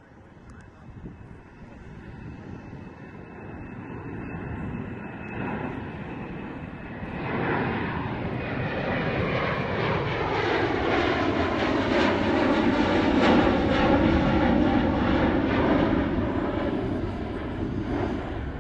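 Embraer KC-390's two turbofan jet engines as the transport flies past and overhead, the sound building steadily louder to a peak about two-thirds of the way through, then easing slightly.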